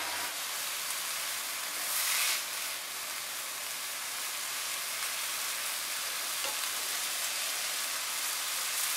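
Shredded savoy cabbage, carrot and bean sprouts sizzling steadily in a hot wok while being stirred with a wooden spatula. The sizzle surges briefly about two seconds in.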